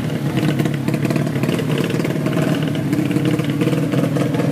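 Tuned 130cc underbone drag-race motorcycle engine running loud and steady at a fast idle, its pitch rising and falling a little.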